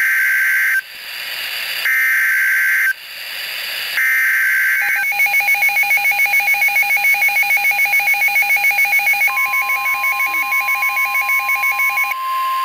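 NOAA Weather Radio emergency alert: three roughly one-second bursts of buzzy digital SAME header data, then rapid electronic alert beeping about four times a second. About nine seconds in, the steady 1050 Hz weather-radio warning tone joins the beeping; it signals an incoming severe thunderstorm warning.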